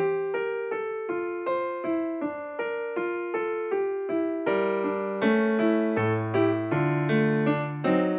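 Background piano music: a melody of separate struck notes, a few a second, over held lower notes.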